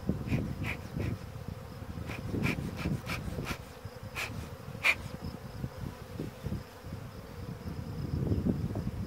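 Honeybees buzzing around an opened hive, a dense steady hum of many bees, with wind rumbling on the microphone and a scatter of short clicks in the first half.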